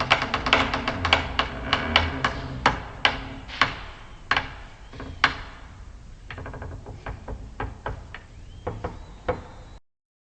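A series of sharp knocks that come quickly at first and then slow and spread out. Scattered fainter knocks follow, and the sound cuts off abruptly near the end.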